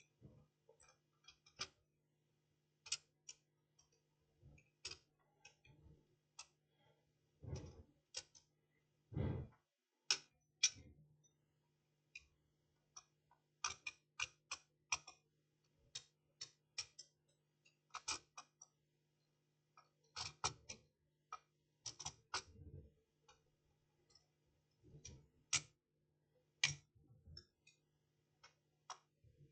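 Scattered faint clicks and taps at irregular intervals, a few with a duller knock, from handling a circuit board and small tools on a workbench, over a faint steady electrical hum.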